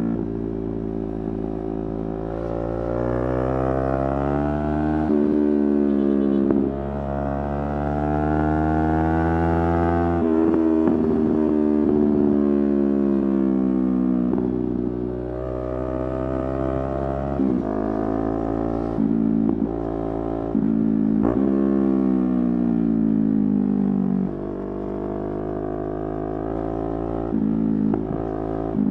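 Yamaha R3's parallel-twin engine under way, rising in pitch under throttle and dropping sharply at each upshift, several times over, with a stretch where the revs fall away slowly as the throttle closes.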